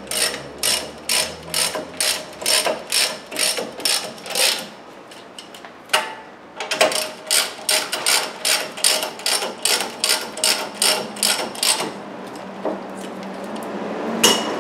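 Hand ratchet wrench clicking in quick, even strokes, about three a second, as the brake caliper mounting-bracket bolts are run in. It pauses for about two seconds a third of the way in, then makes a second run of strokes, and stops a couple of seconds before the end with one last click.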